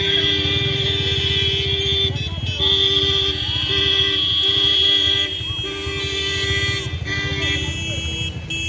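Vehicle horns honking in long held blasts that break off and start again every second or two, over the low running of vehicle engines.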